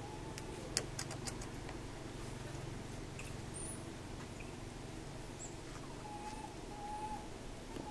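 Faint animal sounds in the trees: a few sharp clicks about a second in, scattered high squeaks, and several short held whistle-like notes near the end, over a low steady hum.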